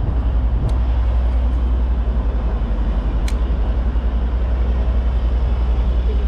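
Boat engine running with a steady low rumble that pulses evenly several times a second. Two brief clicks sound about a second in and again past the middle.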